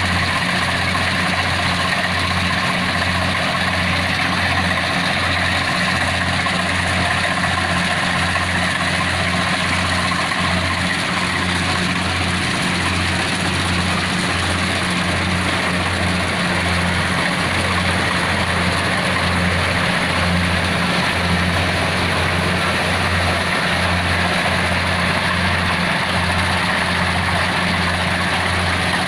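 Kubota DC70PH+ rice combine harvester running: a steady diesel engine hum under a broad rush of machinery noise, holding the same pitch throughout.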